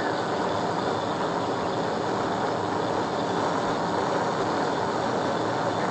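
Steady road, tyre and wind noise of a police patrol car travelling at about 125 mph on an interstate, with the engine's drone underneath.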